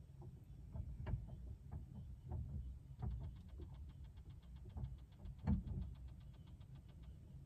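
Dolphin echolocation clicks heard through a small sailboat's fiberglass hull from inside the cabin. A rapid, even train of faint clicks starts about three seconds in, over a low rumble of water noise. Irregular knocks sound against the hull, the loudest about five and a half seconds in.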